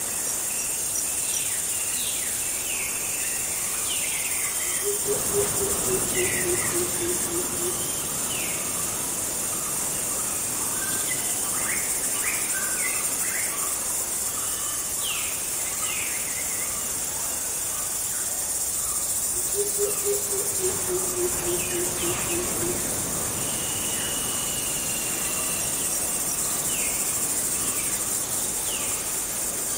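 Night jungle ambience: a steady high drone of insects with scattered short bird chirps, and twice a lower call of quick notes stepping down in pitch over about three seconds.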